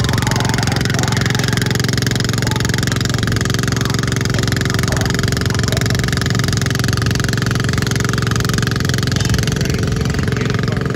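Small garden tractor engines running steadily during a garden tractor pull, a constant engine drone with no revving up or down.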